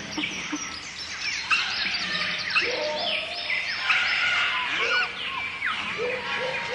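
Jungle bird chorus: many birds calling at once, with a dense overlap of short whistles that slide up and down in pitch and no pause.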